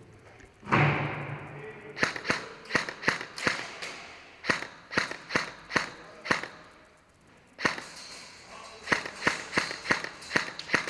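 Airsoft electric rifle firing single shots, about three a second, in two strings with a short pause between them. A loud short rush of noise comes just before the first string, and a softer one before the second.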